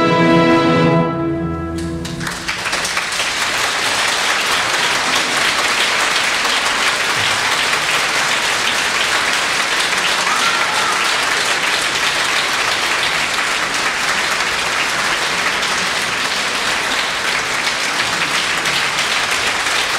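An orchestra's final held chord cuts off a second or two in, followed by steady audience applause.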